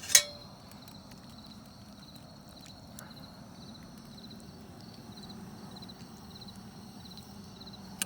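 A sharp click just at the start, then crickets chirping in a steady, even rhythm over a low, steady background noise.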